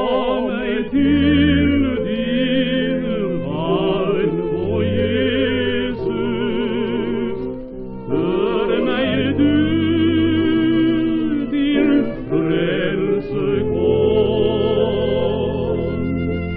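A 1936 Odeon 78 rpm shellac record playing a hymn duet for two singers with vibrato, sung in Norwegian, over a small instrumental trio holding low sustained notes. The sound has no high treble, as on an early electrical recording.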